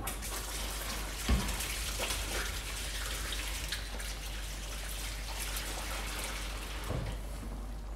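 Water running from a tap into a sink as a board is washed up, a steady hiss with a couple of soft knocks, about a second and a half in and near the end.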